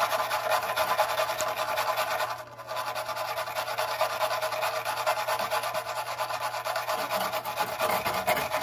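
Hand wire brush scrubbing rust and corrosion off the threaded pipe on top of a water heater: a fast, steady scraping with a brief pause about two and a half seconds in.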